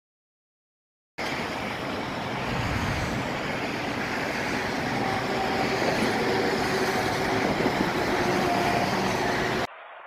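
Steady rumble of road traffic, starting abruptly about a second in and cutting off suddenly near the end.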